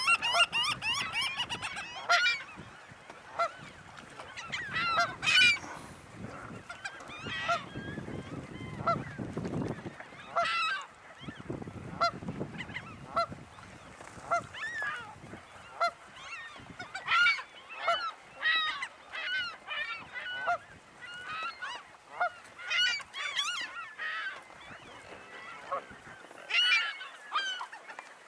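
Waterbirds at a nesting colony calling: many short, honking calls from several birds, repeating every second or so and sometimes overlapping. Twice near the middle there is a low rumble under the calls.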